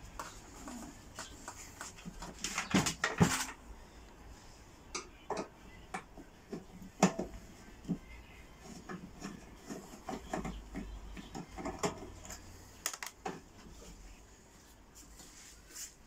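Scattered clicks and metallic knocks as a microwave oven's sheet-metal outer casing is unscrewed and handled, with a louder clatter about three seconds in.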